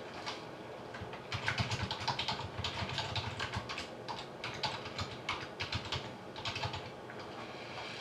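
Typing on a computer keyboard: a quick, uneven run of keystrokes starting about a second in and tailing off near the end.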